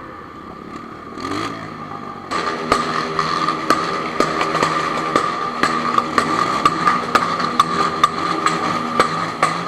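Honda CB1000 motorcycle engine running, getting louder about two seconds in, with sharp clicks about twice a second over it: the abnormal noise the owner is showing.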